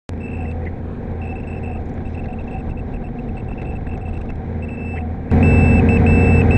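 Volvo excavator's engine and hydraulics running steadily during digging, heard from the cab, with a high-pitched electronic guidance tone from the Leica iCON ixE2 grade control system sounding in broken beeps as the bucket nears grade. About five seconds in, the engine sound suddenly gets much louder and the tone sounds almost continuously.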